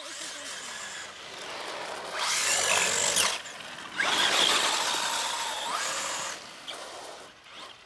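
Motor of a radio-controlled toy truck whining as it drives on asphalt, loudest in two spells about two and four seconds in, then fading near the end.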